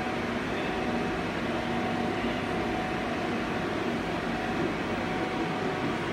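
Nakamura-Tome TW 20 CNC turning lathe running under power: a steady mechanical hum with a constant whine over it.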